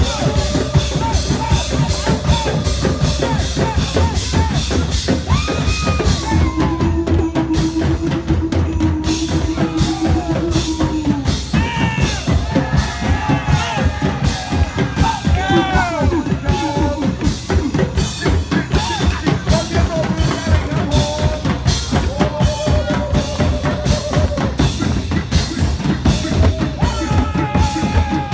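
Loud music with a fast, steady drum beat, about four beats a second, and a melody of sliding, held tones over it.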